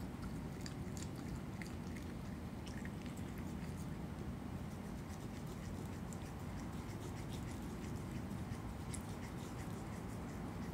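An opossum chewing and tearing at a rotisserie chicken, with many small, irregular wet clicks and smacks. A steady low hum runs under it.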